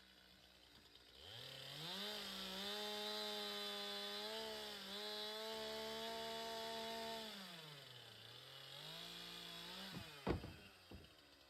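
Gas chainsaw revving up from idle about a second in and running at high speed for about six seconds, with a couple of small dips. It drops back toward idle, revs partly up again, and a sharp knock comes near the end.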